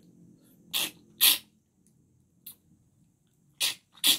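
Several short, hissy slurps as the broth is sucked out of an opened balut egg held to the lips, the loudest about a second in.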